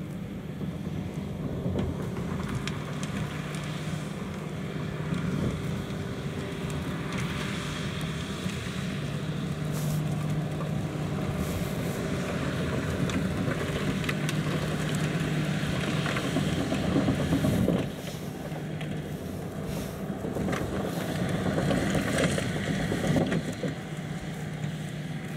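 John Deere 6155R tractor's six-cylinder diesel engine running steadily under load while powering a Keenan side-discharge spreader that is flinging manure. The level swells and dips as the rig moves across the field.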